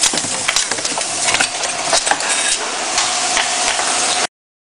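Ring cap filling machine running: a dense metallic clatter and hiss made of many small clicks, with a faint steady hum joining in, cutting off suddenly about four seconds in.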